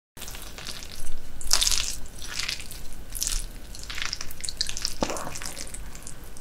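Chopsticks digging into and lifting a slippery heap of raw whitebait (silchi) sashimi, close to the microphone: a run of wet, sticky squelches, loudest between one and two seconds in.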